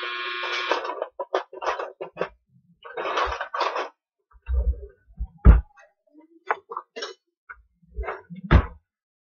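Kitchen drawer pulled open and utensils rummaged through: scattered clicks and clatter with several low thumps, the loudest about five and a half seconds in.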